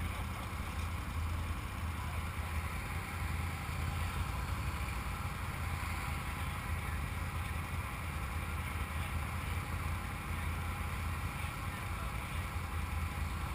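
Can-Am Maverick side-by-side's V-twin engine idling steadily, with a low, even tone.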